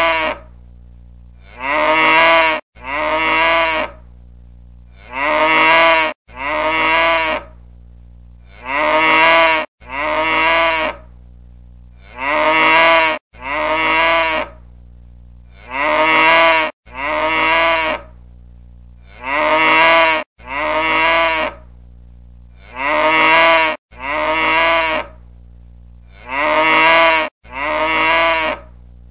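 Cow mooing over and over, about sixteen long moos of a second or so each. They come in a regular pattern of two every three and a half seconds, like a looped recording, with a faint low hum in the gaps.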